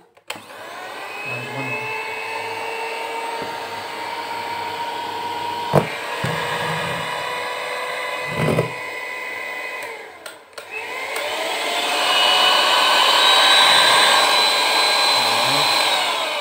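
Philips hand mixer running with its beaters on a test after a gear replacement: the motor runs with a steady whine, stops briefly about ten seconds in, then spins up again to a higher, louder speed before winding down near the end. Two short knocks sound during the first run.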